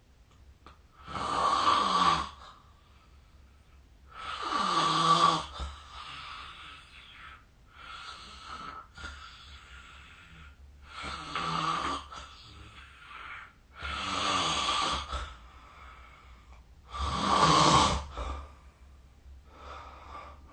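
A sleeping person snoring: five loud, rasping snores at uneven intervals, each lasting about a second, with softer breathing sounds between them.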